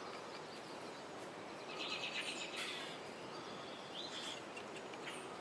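Small birds chirping over faint steady background noise, with a run of short high calls about two seconds in and more near four seconds.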